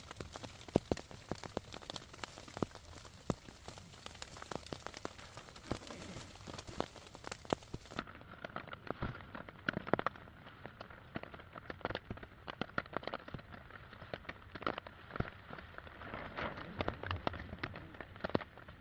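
Heavy rain falling, with many sharp individual drops striking close to the microphone.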